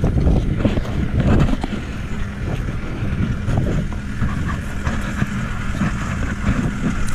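A vehicle engine running steadily, with wind buffeting the microphone and a few light knocks.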